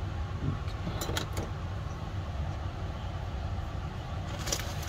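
Steady low background rumble, with a few brief clicks and taps about a second in and again near the end.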